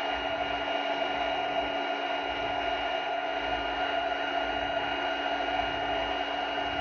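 Handheld induction heater running while its coil heats a nut on the front shock mount: the tool's cooling fan is loud and steady, with a steady whine over it.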